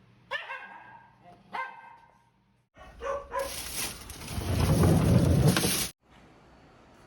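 A dog barks twice, short pitched calls that fall in pitch. Then a loud rushing noise starts a little under three seconds in and cuts off suddenly about three seconds later.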